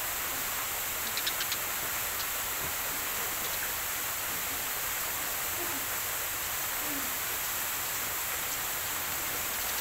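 A steady outdoor hiss, with a dove cooing faintly twice in the second half and a short run of quick high chirps about a second in.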